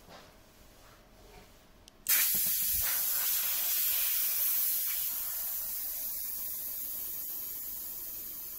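Compressed air for a pneumatic actuator hissing out: it starts suddenly about two seconds in, loud and high-pitched, then fades slowly.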